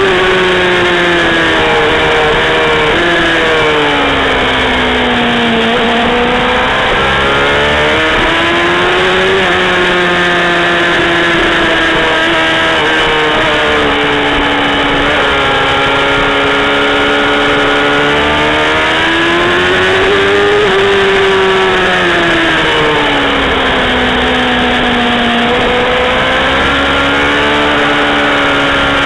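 Kawasaki ZXR400 inline-four sport bike engine running hard on a race track, close to the microphone. The revs fall away and climb again twice, about four seconds in and again about twenty-one seconds in, with steadier running in between.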